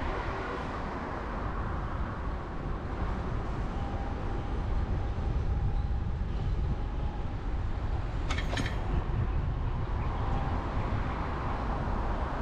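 Steady city traffic noise from the road alongside, a low rumble of passing vehicles, with a short clatter about eight seconds in.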